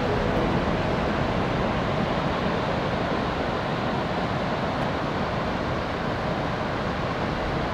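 Ocean surf washing onto the beach with a steady, even rush and no breaks.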